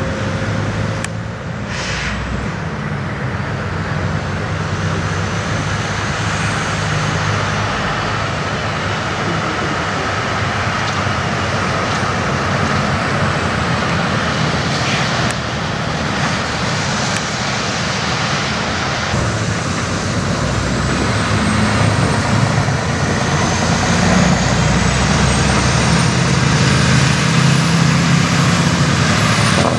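Diesel engine of a semi-truck pulling a trailer, running steadily as it drives slowly past, then getting louder over the last ten seconds or so as it pulls away under load, with a high whine rising in pitch near the end.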